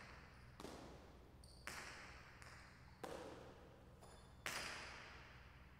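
Jai alai pelota rally: four sharp cracks about a second to a second and a half apart as the hard ball strikes the fronton's walls, each echoing through the large court. The crack a little past the middle is the loudest.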